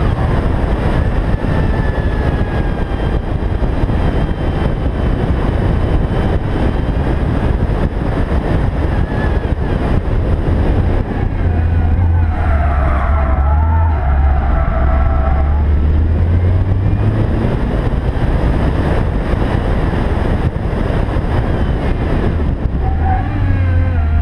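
Supercharged Peugeot 205 GTI engine driven hard, its pitch rising and falling as it revs through the gears, under heavy wind rush on a roof-mounted microphone. About halfway it settles to a steadier lower drone for a tight bend, then climbs in pitch again near the end.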